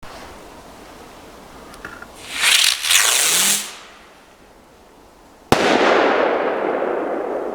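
Circoblitz TR 1 firework going off: a loud hissing rush of about a second and a half, starting about two seconds in. About five and a half seconds in comes a single sharp bang, whose echo dies away slowly.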